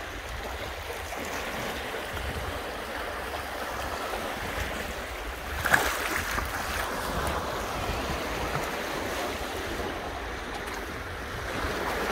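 Sea waves washing steadily, with wind buffeting the microphone. A single sharp, louder sound stands out about halfway through.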